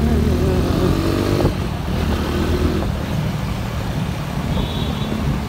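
Motorcycle running at road speed through city traffic, heard from on board: a steady low rumble of engine and road noise, with a short higher-pitched tone near the end.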